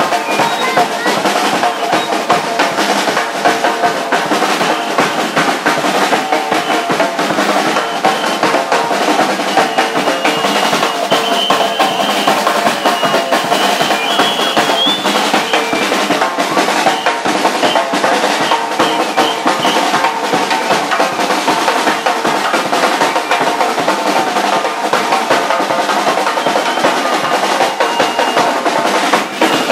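Bermudian Gombey drumming: snare drums and a bass drum beat a fast, unbroken rhythm for the dancers.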